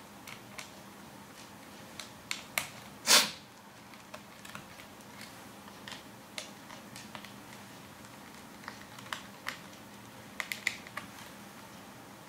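Small screwdriver turning out the back-cover screws of a Sony VAIO Duo 13: scattered light clicks and ticks of the bit on the screw heads and plastic case. One much louder sharp snap comes about three seconds in.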